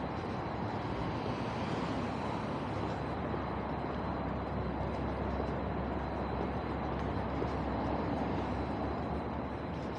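Steady city street traffic noise, with a low rumble that swells through the middle, as from a vehicle passing.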